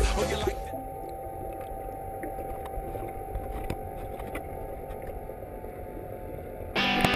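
Muffled, steady low rumble of pool water heard through a camera held underwater, with a faint steady hum. Music fades out in the first moment, and guitar music comes in near the end.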